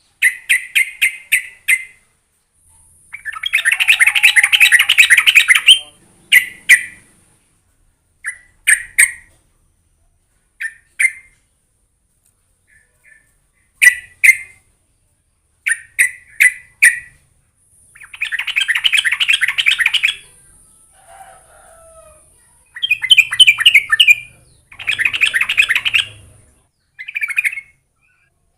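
Yellow-vented bulbul (trucukan) singing: groups of short bubbly chirps alternate with longer continuous warbling runs of two to three seconds, with brief pauses between phrases.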